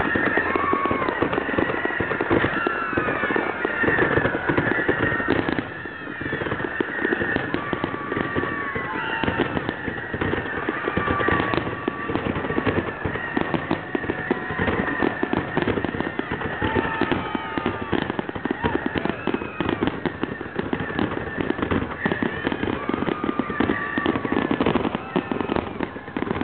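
Fireworks grand finale: a rapid, continuous barrage of bangs and crackling from many shells bursting at once, with short high whistling glides cutting through throughout.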